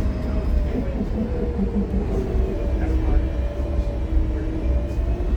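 Inside a 2015 Gillig Low Floor CNG bus, with its Cummins Westport ISL G engine and Voith transmission, under way: a steady low rumble with a drivetrain whine that slides down in pitch and climbs again near the end.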